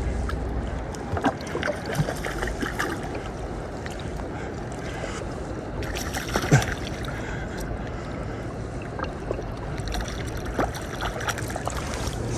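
River water moving against a small fishing boat: a steady wash of water with scattered small knocks and splashes.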